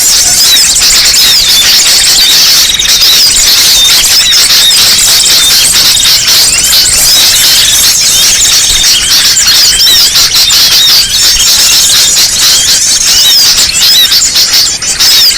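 A dense, unbroken chorus of many small birds chirping and twittering all at once, in short rapid up-and-down notes. It is a loud recorded lure track used to draw small birds in for trapping.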